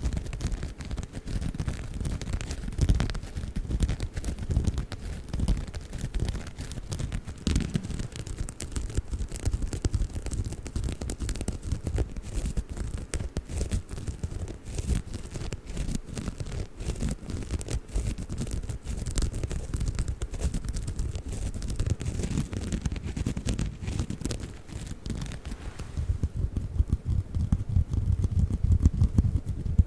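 Bamboo sponge being rubbed and scratched in fast, continuous scrubbing strokes. Near the end the sound turns duller and heavier, with less hiss.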